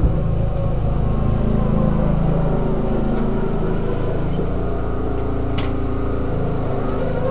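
Riding lawn mower engine running steadily under load as it is driven across the lawn, with one sharp click about halfway through.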